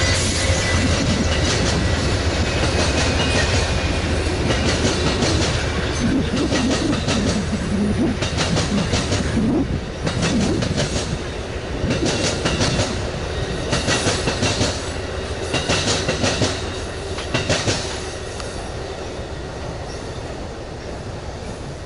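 Amtrak Superliner bi-level passenger cars rolling past at speed, with a steady rumble and repeated groups of wheel clicks over rail joints. The sound drops away near the end as the last car passes.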